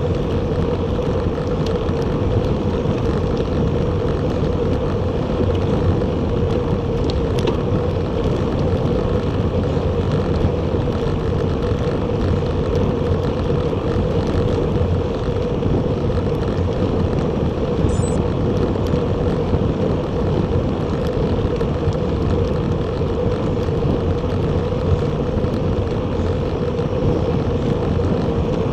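Steady wind and road noise from riding a Bacchetta Corsa recumbent bicycle at speed, with wind buffeting the action camera's microphone. A constant hum runs under the rush of air and tyres.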